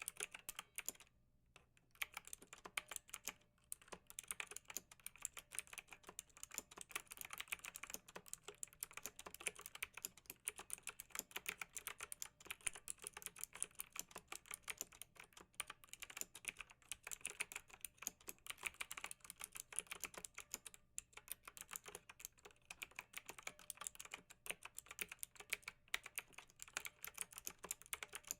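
Slime being squeezed and poked, ASMR-style: faint, rapid, dense clicking and crackling with a short pause about a second in.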